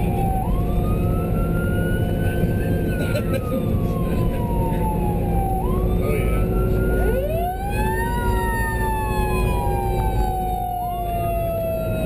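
Emergency-vehicle siren sounding a slow wail. It rises quickly and slides slowly back down about every five seconds, over the steady engine and road noise of the moving vehicle. About seven seconds in, a second siren at a different pitch joins.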